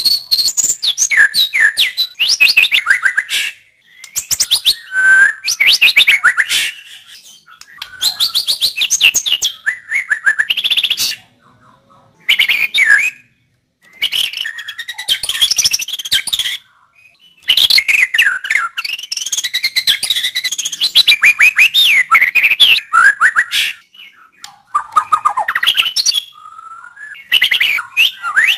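White-rumped shama singing: loud phrases of rapid, varied whistles and trills, each lasting one to three seconds, separated by short pauses.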